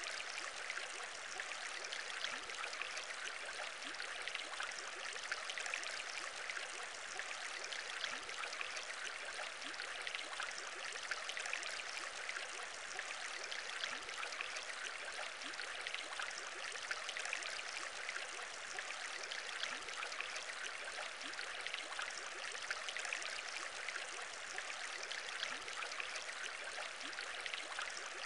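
Aquarium water bubbling: a steady, dense run of small bubbles popping in water, even and unbroken.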